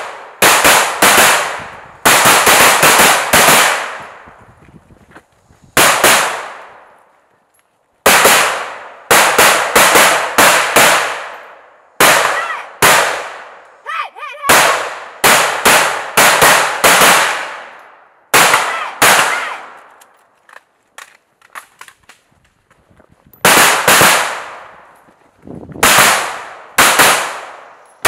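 AR-15 rifle fired in quick strings of semi-automatic shots, several shots a second, with short pauses between strings. Each shot trails off in an echo.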